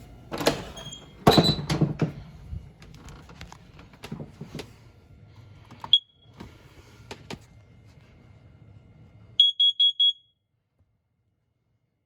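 Household smoke alarm's sounder gives one short, high beep about six seconds in, then a quick burst of four beeps near ten seconds, after which the sound cuts off abruptly. Before that, knocks and handling clicks.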